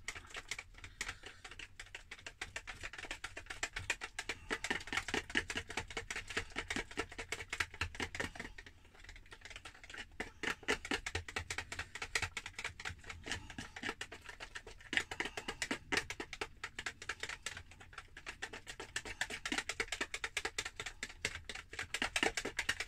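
Pancake batter being beaten by hand with a whisk in a plastic mixing bowl: rapid, steady clicking and tapping of the whisk against the bowl, with a short lull about nine seconds in.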